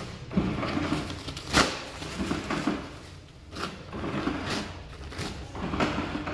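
Motor of an automatic paper towel dispenser whirring in short runs as it feeds out towel after towel, with a sharp rip of paper each time a towel is torn off, a few times over.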